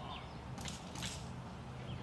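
Small birds chirping over a steady low outdoor rumble, with two short rustling noises near the middle.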